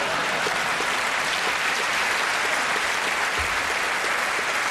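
A large audience applauding steadily, with laughter mixed in.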